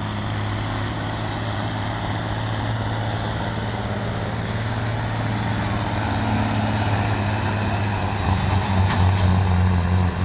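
Semi truck's diesel engine running hard under load as it pulls the weight-transfer sled down the track. The engine note is steady and gets louder about eight seconds in.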